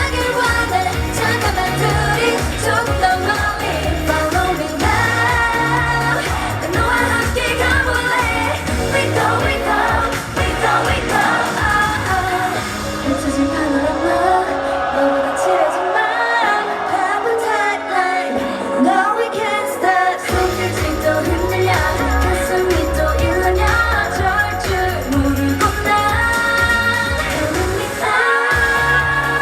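Live K-pop dance song with female group singing over a loud backing track and heavy beat; about halfway through, the bass and beat drop out for several seconds, then come back in.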